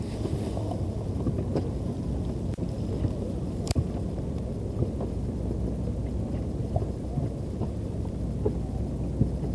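Steady low rumble of a small fishing boat's engine, with wind on the microphone and a few light knocks, the sharpest one near the middle.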